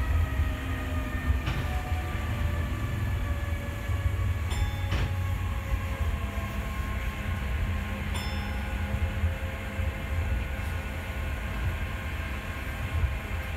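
Osaka Monorail 3000-series car running along the guideway, heard from on board: a steady low rumble from its rubber tyres with several motor whines slowly falling in pitch. A few faint clicks come through near the middle.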